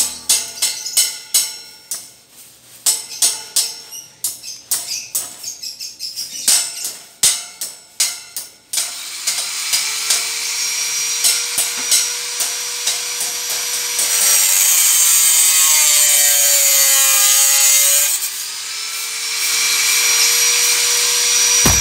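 Sharp, irregular hammer strikes on a steel window-grill frame, typical of chipping slag off fresh welds. About nine seconds in, a power tool like an angle grinder spins up and runs steadily, its pitch dropping for a few seconds as it bites into the metal, then recovering.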